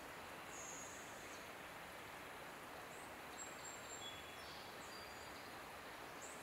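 Steady outdoor background hiss in woodland, with a few faint, thin high-pitched calls: one lasting about a second near the start, and shorter ones in the middle and near the end.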